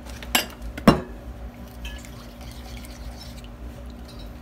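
Two short knocks of kitchenware, ceramic and glass, being handled on a countertop about half a second apart, the second a louder, deeper clunk, over a faint steady low hum.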